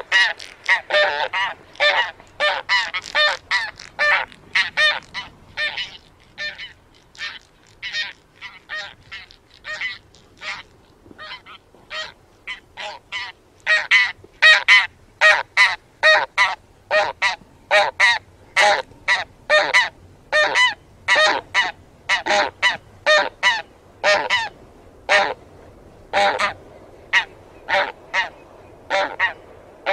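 A flock of taiga bean geese honking in flight: a steady run of short honks, several a second and overlapping, thinning out for a few seconds in the middle before picking up again.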